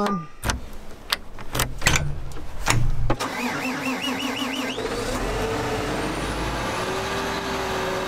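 Several clunks and knocks, then from about three seconds in a John Deere tractor's diesel engine is started after the battery switch is turned on and settles into steady running, with a warbling high tone and a rising whine over it.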